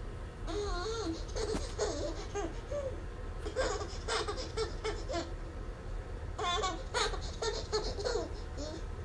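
An eight-month-old baby boy laughing and babbling in short runs with brief pauses between them.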